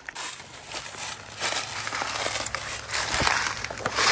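Footsteps crunching through dry grass and brush, with stalks and twigs rustling and snapping, growing busier about a second and a half in.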